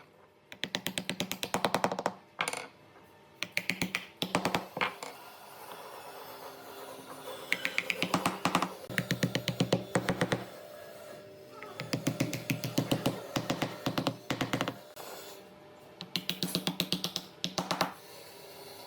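A power tool running in short bursts of rapid clicking, a second or two each, about eight times with brief pauses between.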